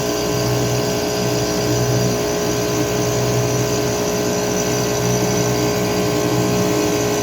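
Rooftop HVAC units running: a steady mechanical hum with a constant tone and a low drone that swells and eases about once a second.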